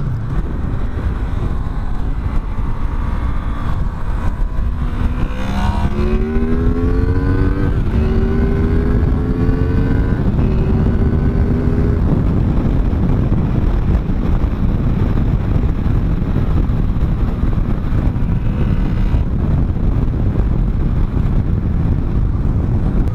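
Honda VFR 800's 90° V-four engine accelerating through the gears, its pitch rising in several steps and dropping back at each upshift from about five seconds in to about twelve, then running steadily at cruising speed. A steady rush of wind and road noise runs under it.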